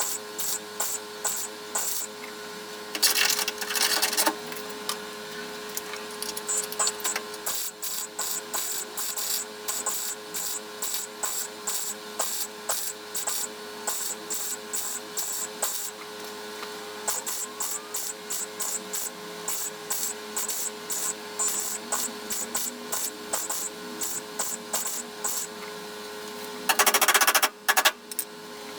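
Welder arc crackling in two short bursts of about a second each, about three seconds in and again near the end, as a steel repair panel is welded into the car's floor structure. Between the bursts there is a fast, regular ticking about four times a second over a steady hum.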